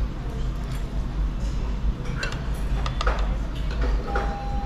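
Metal spoons clinking against ceramic bowls at a dining table, a few light clinks about two, three and four seconds in, over a steady low hum of room noise.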